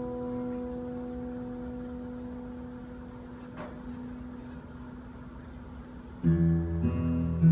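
Acoustic guitar: a chord left ringing and slowly dying away, then about six seconds in new low notes are plucked louder and the playing picks up again.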